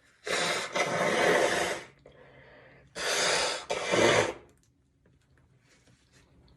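A person forcing air hard out through the nose twice: two loud rushes of breath, each about a second to a second and a half long. The second comes about three seconds in.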